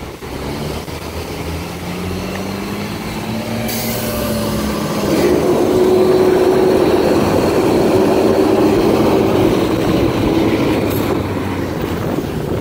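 Freightliner M2 rear-loader garbage truck pulling along, heard from its rear riding step: the engine pitch climbs over the first few seconds as it accelerates, then a louder steady drone holds and eases off near the end, over road noise.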